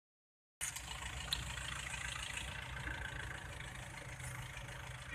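Locomotive engine running with a steady low rumble, starting about half a second in.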